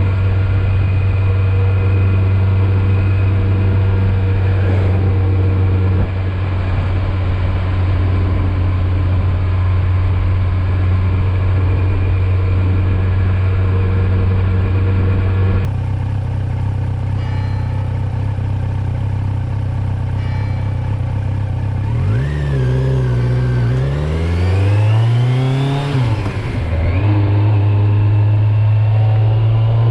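Kawasaki Z900 motorcycle's inline-four engine, in its 35 kW restricted form, running at steady revs, then from about two-thirds through the revs fall and climb again several times as it accelerates, climbing once more near the end.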